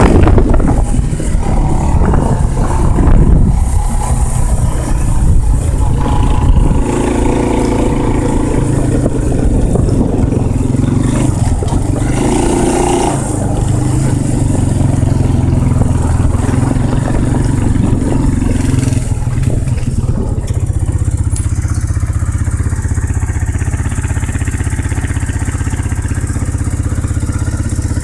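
ATV (quad) engine running while riding, its pitch rising and falling with the throttle, then holding steadier over roughly the last third.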